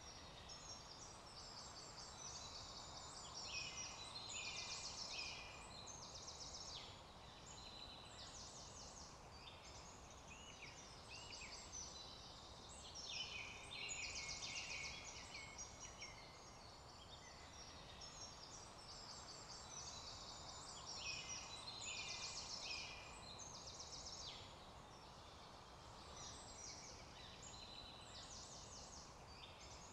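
A chorus of several songbirds singing at once, faint, their rapid trilled phrases overlapping, with busier spells every several seconds.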